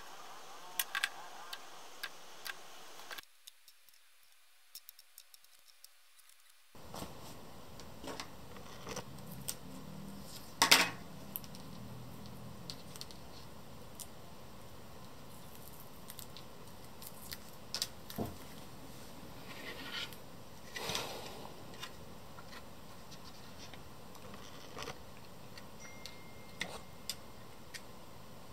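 Scattered small clicks and taps of steel tweezers and plastic model-kit track links being picked up, set down and fitted together on a cutting mat, over a low steady hiss. The sound drops to near silence for a few seconds early on, and the loudest click comes about a third of the way in.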